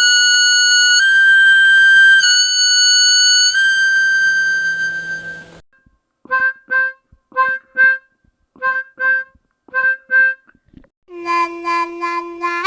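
Harmonica playing: long held notes stepping back and forth between two pitches, fading out about five seconds in. Then short notes in quick pairs, repeated several times, and near the end a fuller chord with a rapid pulsing.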